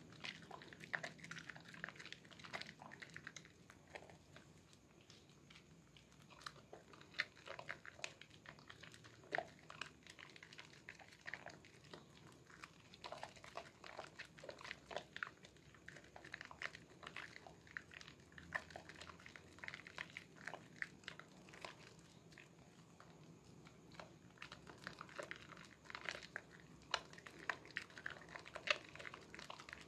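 Wet squelching and crackling of thick soap lather as bare hands rub and squeeze a bar of red Sehat soap over a basin of soapy water. Many short, irregular squishes and pops follow one another throughout.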